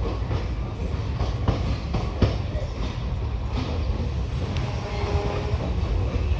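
Indian Railways passenger coach rolling along a station platform, heard from aboard: a steady low rumble of wheels on track, with a few sharp clacks as the wheels pass rail joints.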